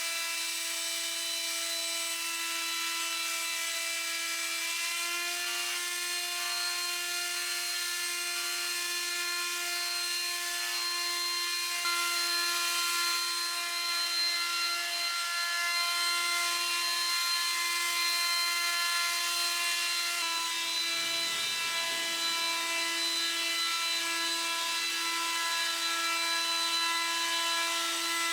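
Cordless battery-powered blower running at a steady speed, its fan and motor giving a high, even whine. It gets a little louder about twelve seconds in.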